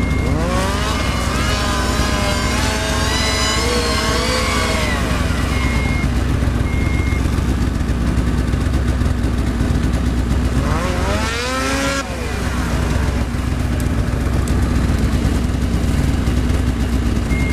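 Snowmobile engine running with a steady low drone, revved up and down in long rising-and-falling sweeps over the first five seconds and again briefly about eleven seconds in.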